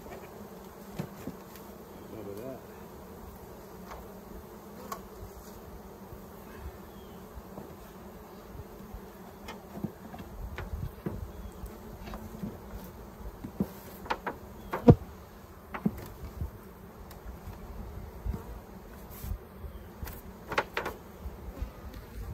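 Honeybees buzzing around opened hives, a steady hum. Scattered sharp knocks and taps from wooden hive boxes and lids being handled, the loudest about fifteen seconds in.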